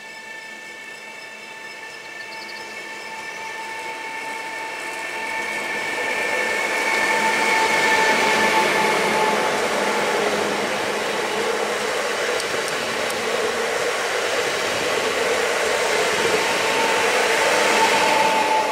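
Electric multiple unit 48WEb-023 approaching and passing at speed. A steady whine from its electric drive sits over the rumble of wheels on rails, building for about eight seconds and then staying loud.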